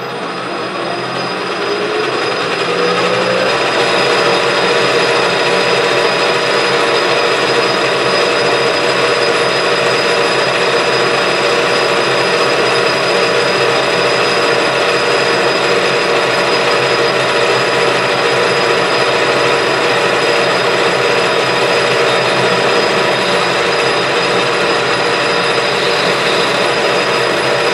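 Metal lathe running, its pitch rising as it comes up to speed over the first few seconds and then holding steady, while a carbide tool turns a 4140 pre-hardened steel shaft down.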